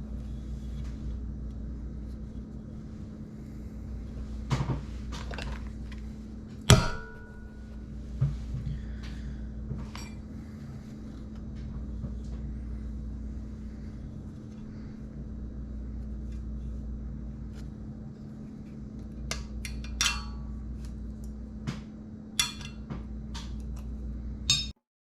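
Scattered metallic clinks and knocks of hand tools and valve-train parts on a cylinder head while a valve spring is compressed to free its keepers, over a steady low hum. One sharp, ringing clink comes about seven seconds in, and a quicker run of clicks near the end before the sound cuts off suddenly.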